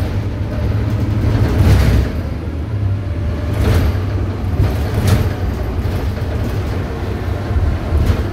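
VDL Citea CLF 120 city bus under way, heard from inside the passenger cabin: a loud, steady, low engine drone with a few short knocks and rattles through the body.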